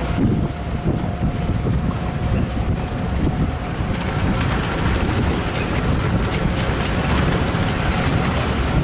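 Open safari jeep driving along a dirt forest track: steady engine and tyre rumble, with wind buffeting the microphone.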